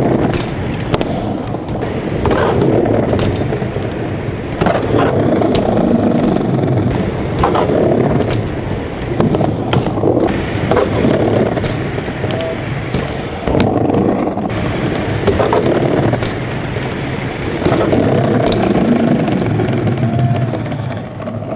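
BMX bike rolling on concrete, its tyres rumbling in surges, with scattered sharp clacks and knocks.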